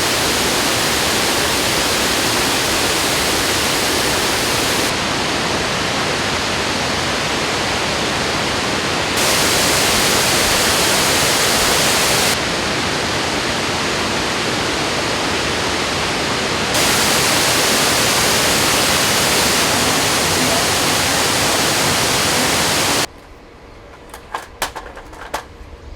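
Steady rushing roar of Fukuroda Falls' cascading water, jumping abruptly in loudness and brightness several times as the shot changes. About 23 seconds in it cuts to a much quieter background with a few light knocks.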